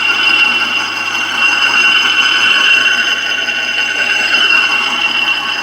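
Homemade line boring machine running: its drive turns steadily with a constant high whine over a low hum.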